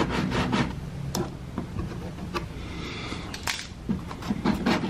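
Plastic valance edge being hand-sanded with a folded piece of sandpaper: a quick run of scratchy rasping strokes, a few single scrapes in the middle, then more strokes near the end, over a steady low hum.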